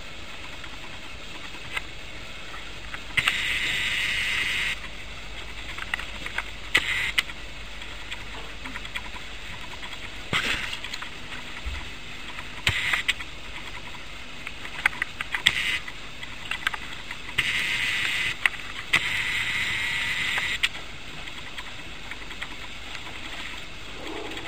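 Puppies playing with toys: scattered small clicks and knocks, with three scratchy rustles of about a second or more each.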